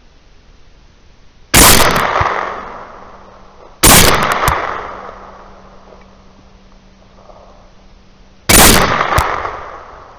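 Three rifle shots. The first two come about two seconds apart and the third about five seconds after that. Each is a sharp crack that rolls away over a second or so.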